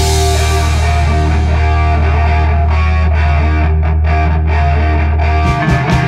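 Rock song with distorted electric guitar chords over a steadily held low bass note, starting on a crash. A drum beat comes in about five and a half seconds in.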